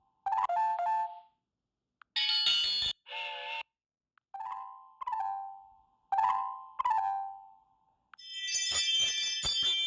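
Ring doorbell alert tones being previewed one after another: a falling two-note ding-dong chime repeated several times, with two brighter, shorter ringing tones about two to three seconds in, and a dense jingling tone that starts near the end.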